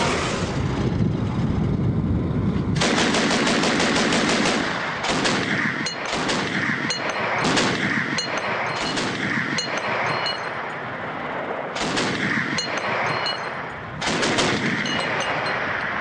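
A BTR-80A's 30 mm turret autocannon firing a series of short bursts, with spent cases ejecting. The bursts follow about three seconds of the armoured vehicle's running noise.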